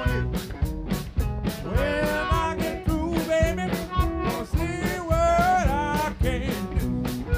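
Live blues-rock band playing an instrumental break: a harmonica plays bending, wavering notes from about two seconds in to about six, over a steady drum beat, bass and electric guitars.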